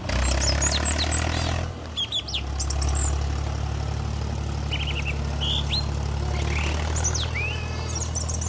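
Tractor engine running with a steady low drone, with birds chirping in short scattered calls over it.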